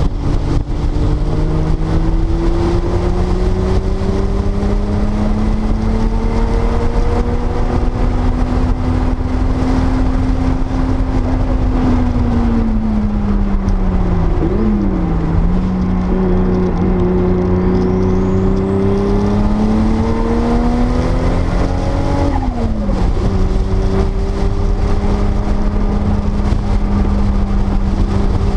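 1979 Porsche 930 Turbo's turbocharged flat-six under way on a race track. The engine note climbs slowly, falls away about halfway with a quick blip of revs, climbs again, then drops sharply at a gear change and runs steady. A constant low rumble sits under the engine.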